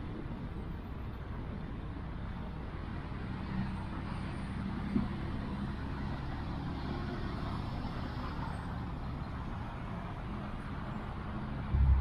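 Steady low rumble of a bicycle ride on an asphalt path, heard through a bike-mounted action camera: wind and tyre noise, with a brief knock about five seconds in.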